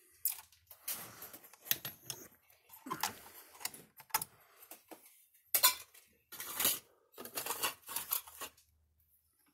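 Irregular clicks and clatter from hands handling an opened electric fence energizer and its capacitors on a workbench, with a sharp knock about five and a half seconds in.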